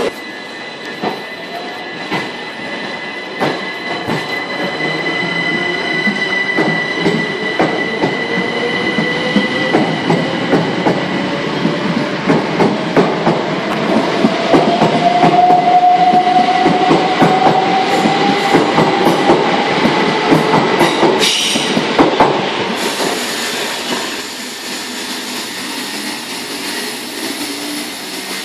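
Southern electric multiple unit pulling away from the platform: its traction motor whine rises steadily in pitch as it accelerates, over steady high tones and wheels clicking over rail joints. About three-quarters of the way through it cuts to a quieter, steady train sound.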